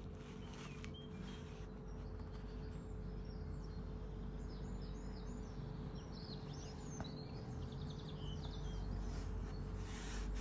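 Steady low background rumble with a faint constant hum, and birds chirping repeatedly in the background from about three seconds in until near the end.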